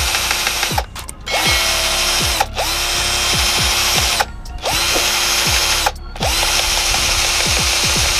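Cordless drill running in several bursts with short pauses between them, its bit drilling out and enlarging a hole in a plastic mudguard.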